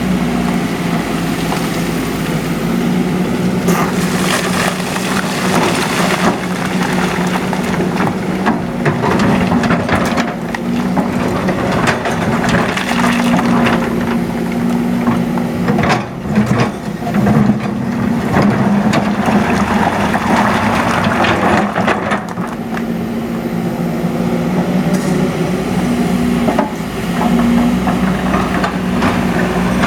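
Excavator's diesel engine running steadily, its note swelling and easing with the load. Over it come repeated knocks and scrapes of stone and earth.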